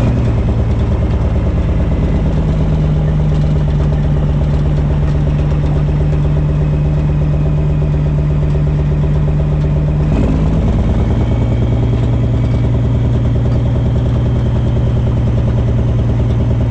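Caterpillar C13 diesel engine of a Kenworth W900B dump truck running steadily, its pitch stepping down a little about ten seconds in as the engine speed drops.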